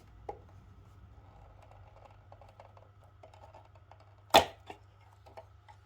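Small clicks and handling noises from working on an opened speaker cabinet, with one sharp knock about four seconds in and a softer one just after.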